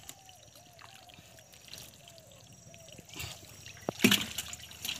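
Hands groping and squelching in shallow water and wet mud while feeling for catfish. There are two short wet splashes, about three and four seconds in, and the second is louder.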